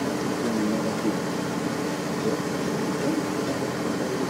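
John Deere 6900 tractor's diesel engine running steadily under load as it pulls a plough through the field.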